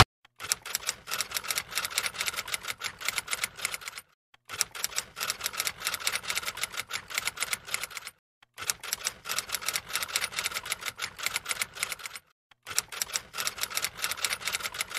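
Typing sound effect of fast typewriter key clicks, in four runs of about four seconds, each broken by a short pause.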